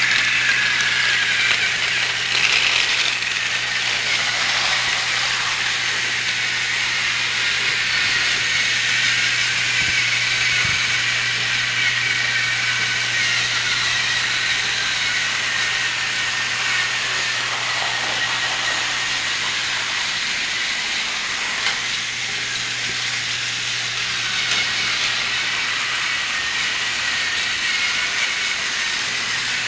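Battery-operated TrackMaster motorized toy trains running on plastic track: a steady high whir of the small motors and gearing, with the plastic wheels rattling along the rails.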